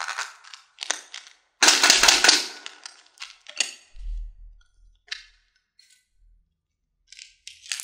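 Hard candy-coated chocolates rattling and clicking against hard plastic as they are shaken in and tipped out of a clear lollipop-shaped container into a plastic scoop. There is a dense burst of clattering about two seconds in, then scattered single clicks.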